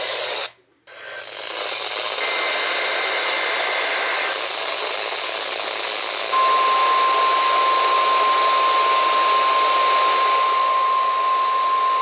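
NOAA Weather Radio receiver hissing with static that drops out briefly under a second in. About two seconds in there is a faint two-tone digital SAME header burst. About six seconds in the steady 1050 Hz warning alarm tone of the Required Weekly Test starts and holds.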